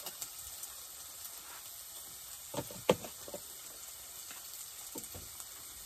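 Chopped bacon sizzling in a frying pan, a steady frying hiss, with a few short knocks and clicks near the middle.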